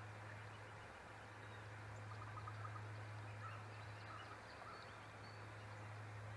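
Faint outdoor ambience: a steady low hum, with a few faint, distant bird chirps about two to five seconds in.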